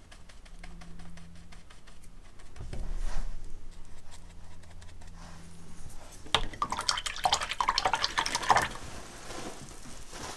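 Palette knife mixing acrylic paint on a palette and dabbing it onto sketchbook paper: a dense run of quick scraping and tapping strokes starting about six seconds in and lasting a few seconds.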